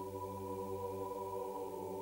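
Music holding one steady, sustained chord, with no change in pitch.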